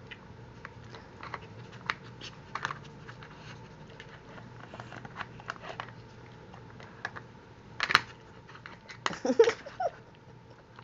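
Dog nudging and flipping the plastic lids of a treat puzzle toy with its nose: scattered light plastic clicks and taps, with a sharper clack about eight seconds in. A brief voice-like sound follows about a second later.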